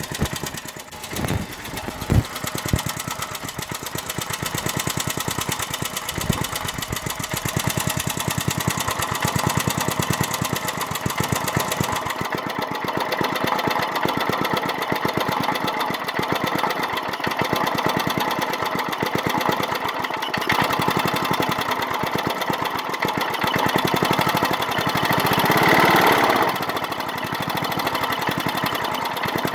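Small 1995 Briggs & Stratton go-kart engine running steadily after sitting seven years without starting, with a few loud pops in the first three seconds. Its speed and loudness rise briefly a little before the end, then settle back.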